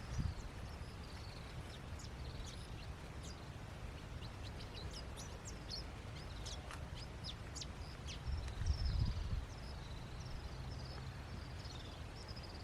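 Wild birds chirping and calling: many short, high chirps and whistled notes, over a low rumble that swells briefly about nine seconds in.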